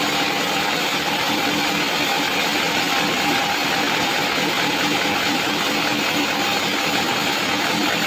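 Sawmill band saw running while cutting a plank of sengon (albasia) wood: a dense, steady machine noise with a constant hum beneath it.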